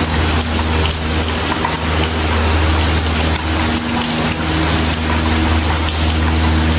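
Steady low mechanical hum, like a motor running, under a constant hiss.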